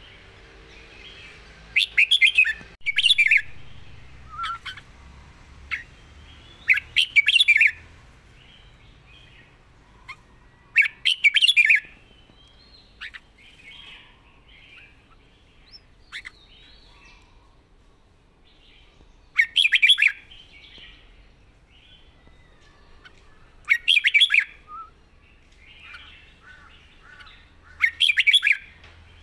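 Red-whiskered bulbul singing: short, loud warbled phrases of about a second each, repeated every few seconds, with softer twittering between them.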